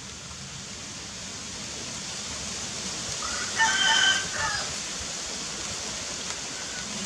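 A rooster crows once, about three and a half seconds in, a single call of about a second with a rise and fall in pitch, over a steady hiss.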